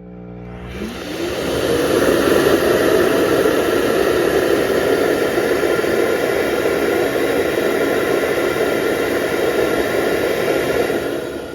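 Amarey A90+ auto-empty docking base's suction motor spinning up with a rising whine, running loud and steady for about ten seconds as it empties the robot's dustbin, then winding down near the end.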